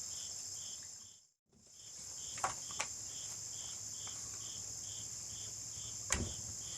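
Steady high-pitched insect chorus with rhythmic chirping about twice a second, broken by a brief total dropout a little over a second in. A few sharp clicks from handling the saw's fuel cap and can come about two and a half seconds in and again near the end.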